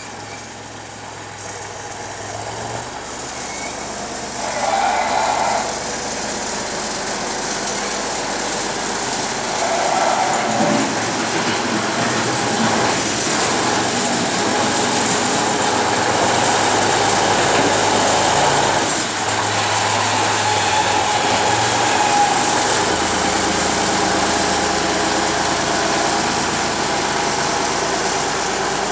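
Diesel engines of a heavy wheel loader and a dump truck running while the loader works a bucket of peat briquettes, the sound growing louder over the first several seconds and then holding steady.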